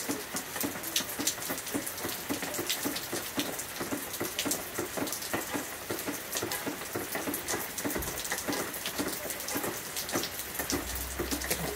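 Heavy rain falling on a backyard, with many individual drops ticking sharply on the concrete path and ground. A low rumble comes in near the end.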